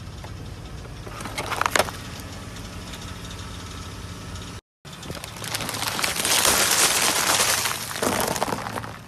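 Car engine idling, with a short crackle about a second and a half in. After a cut, a louder stretch of dense crunching and crackling comes from a car tyre rolling over and crushing something brittle, then fades near the end.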